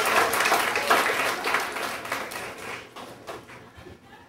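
Audience applauding in a hall, the clapping dying away over the first three seconds, leaving a few scattered claps.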